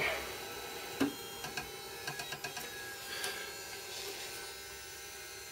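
Light clicks and a knock about a second in from the knife carriage of a vinyl cutter being handled and nudged into position, over a steady electrical hum.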